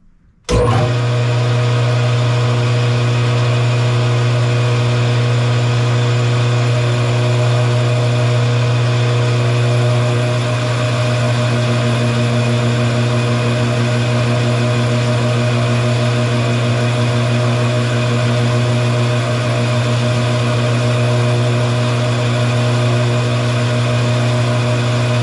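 Metal lathe running steadily: a loud, even motor hum with several steady whining tones over it, cutting in suddenly about half a second in.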